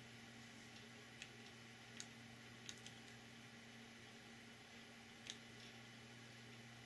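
Near silence: a steady low hum with five faint, sharp clicks scattered through it, from a paintbrush and small paint containers being handled on a table.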